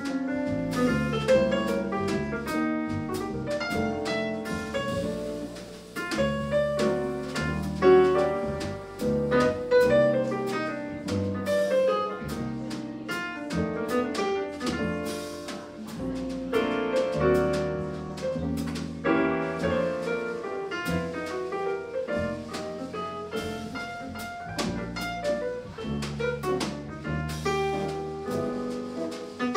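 Live jazz quartet playing: a Nord Stage keyboard with a piano sound, electric guitar, upright double bass and a drum kit.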